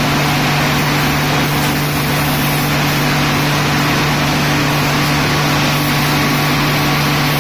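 High-pressure water jet spraying onto railway track, a steady loud hiss over a constant low machine hum.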